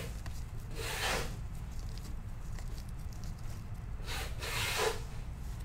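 Trading cards sliding and rubbing against each other as they are handled and flipped, with two swishes, one about a second in and a longer one around four seconds in, over a low steady hum.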